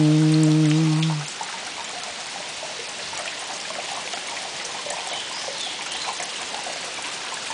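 Steady rain falling on the orchard's leaves and ground: an even hiss with scattered small drop ticks. A man's held sung note ends about a second in.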